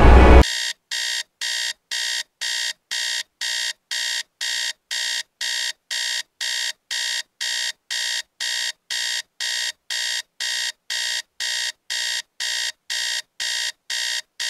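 Smartphone alarm beeping: identical electronic beeps, about two a second, stopping near the end as it is switched off. It opens with a loud burst of music that cuts off abruptly within the first half second.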